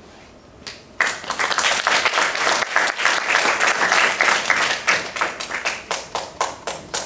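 Audience applauding, breaking out suddenly about a second in and thinning to scattered single claps near the end.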